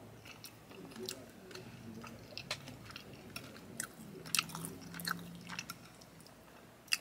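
A person chewing soft, creamy chicken Alfredo with bow-tie pasta, mouth closed, with soft wet clicks and smacks scattered throughout.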